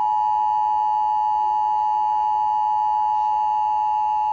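Emergency Alert System two-tone attention signal: two steady tones near 853 and 960 Hz sounding together without a break, the alarm that heralds a spoken flash flood warning.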